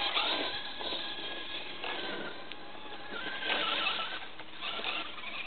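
RC truck's motor whining in several short bursts as it spins its tyres in wet, heavy snow, fading near the end.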